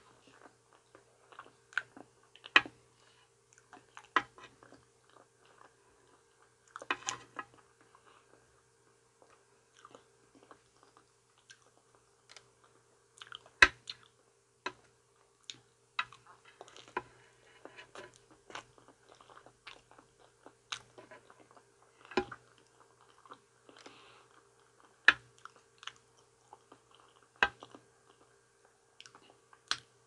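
Close-miked chewing and mouth sounds of someone eating banana, with sharp clicks scattered irregularly through it. A faint steady hum runs underneath.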